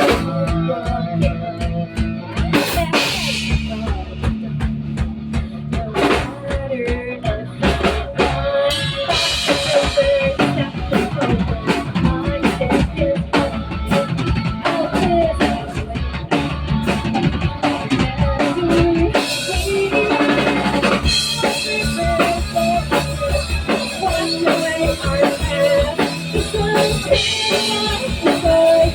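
Background music with a steady drum-kit beat: kick, snare and rimshot under sustained instruments.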